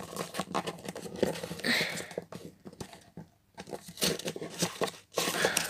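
A sheet of paper being crumpled and wrapped around a pen by hand: a run of short crackles, broken by a quiet pause of about a second in the middle.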